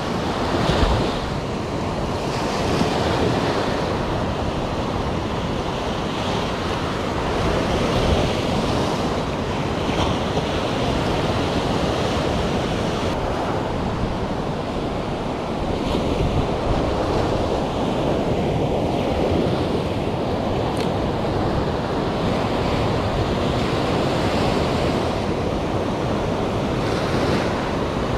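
Sea surf breaking and washing up a sandy shore in a steady, swelling rush, with wind rumbling on the microphone.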